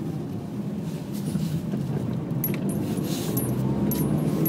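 Car engine and road noise heard inside the cabin while driving: a steady low hum.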